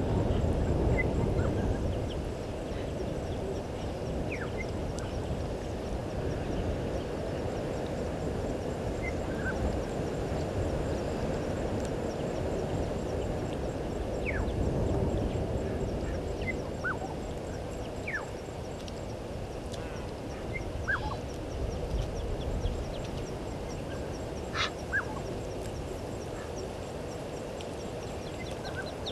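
Outdoor bush ambience: a steady low background noise with scattered short bird chirps and whistles, a few sharper calls in the second half.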